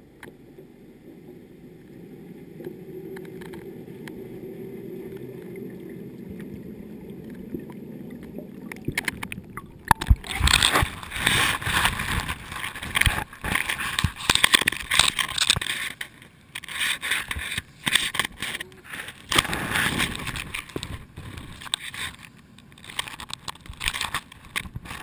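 A camera in its housing on a lampara net: a muffled low rumble underwater, then about ten seconds in, the net comes out of the water and it turns to loud, uneven splashing, dripping and the mesh scraping and rubbing over the housing as the net is hauled aboard by hand.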